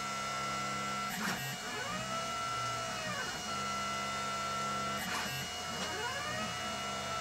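Stepper motors of a CNC machine driving a pyrography pen, whining in arcs of pitch that rise, hold and fall as the axes speed up and slow down. There is a short click about a second in and again about five seconds in.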